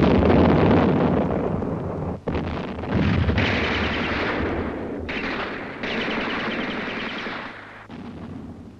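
Rapid machine-gun fire in a dense battle din, loudest at the start. It breaks off briefly about two seconds in, comes back as two rattling bursts and fades near the end.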